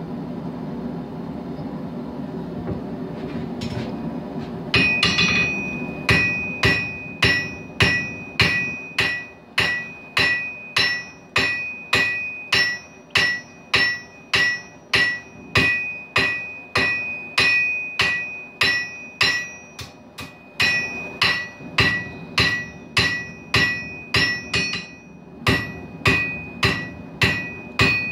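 Hand-hammer forging hot steel on an anvil: a steady rhythm of blows, nearly two a second, each leaving a high ring from the anvil, with a couple of short pauses. The hammering starts about five seconds in, after a steady roar from the running forge.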